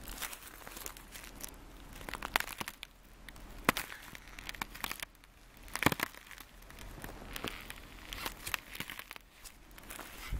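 Boots stepping on thin ice over frozen leaf litter: irregular sharp cracks and crinkling as the ice breaks underfoot. The loudest cracks come about a third and just over halfway through.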